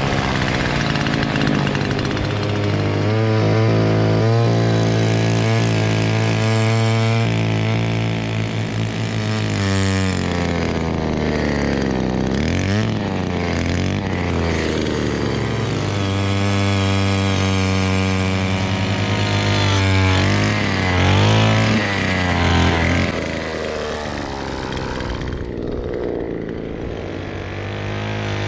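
Petrol-powered motor ice auger running continuously, its engine pitch dropping and climbing back several times, around the middle and again later, as it loads up drilling through the ice.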